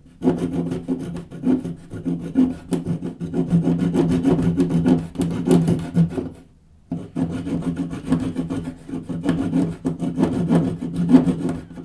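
Rapid back-and-forth rasping strokes of a small multitool blade cutting into a pine stick, with a short pause a little past halfway.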